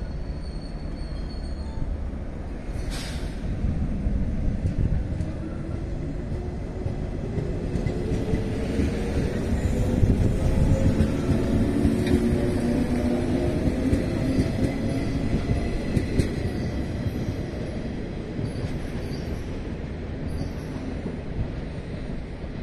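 JR 115-series electric multiple unit pulling away from a station. Its traction motors give a whine that rises in pitch as it accelerates past, over a steady rumble of wheels on rail, with a single sharp clank about three seconds in.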